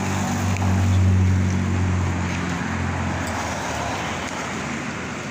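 Car engine hum with tyre and road noise, loudest about a second in and then fading away.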